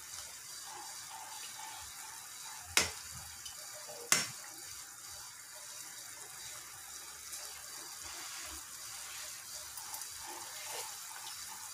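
Pot of tinolang manok simmering on a gas burner, a steady hiss. A metal ladle stirs the broth and knocks sharply twice against the aluminium pot, about three and four seconds in.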